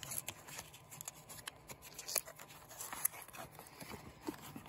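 Faint rustling and light clicks of a small cardboard card-deck box being opened by hand, its flap lifted and the contents drawn out.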